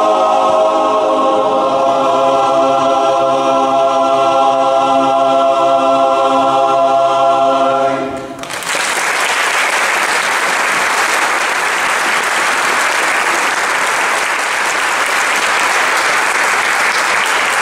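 Men's barbershop chorus holding one long final chord, cut off cleanly about eight seconds in, followed by steady audience applause.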